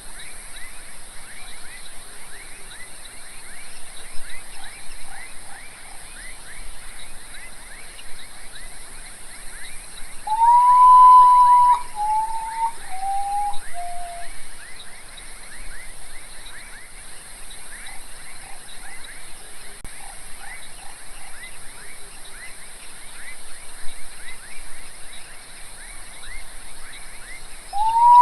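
Common potoo (urutau) singing once, about ten seconds in: a long, mournful whistled note that swells and holds, then three shorter notes stepping down in pitch. Behind it runs a steady chorus of rapid chirps, with a constant high hiss.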